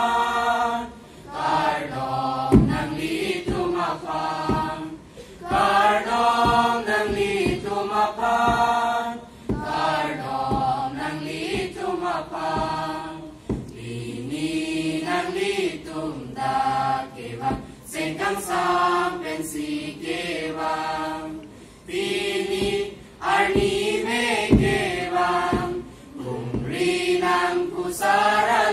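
Mixed choir of teenage boys and girls singing a song together, in phrases of a second or two with short breaks for breath.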